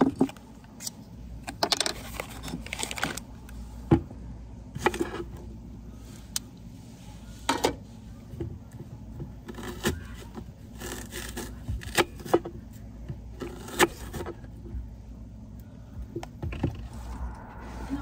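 Kitchen knife cutting vegetables on a wooden cutting board: irregular sharp knocks of the blade on the board, with scraping and handling sounds between them.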